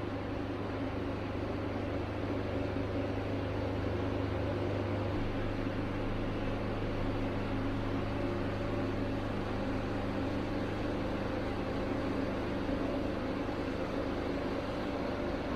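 Steady machine running at a constant pitch, a continuous hum with a hiss over it and no change in speed.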